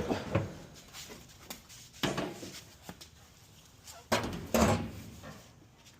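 Sheet-metal clunks and scrapes as a Samsung dryer's panel is pulled up and out during disassembly: a short knock about two seconds in, then two louder knocks a little after four seconds.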